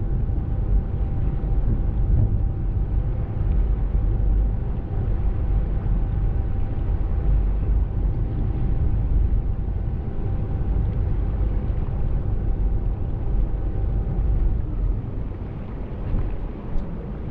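Ferry engine running with a steady low rumble and a faint constant hum, which fades near the end; one sharp click near the end.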